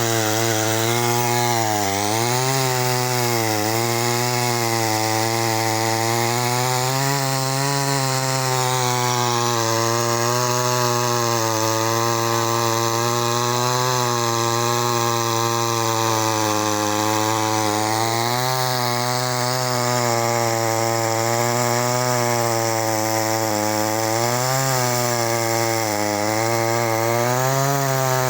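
Chainsaw running steadily at high throttle while cutting a tree, its engine pitch dipping and recovering several times as the chain loads up in the wood.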